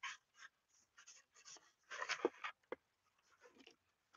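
A scuff pad rubbed by hand over a football helmet shell, making faint, irregular scratchy strokes, the strongest about two seconds in. The pad is dulling the shiny spots and working into the holes so the paint will stick.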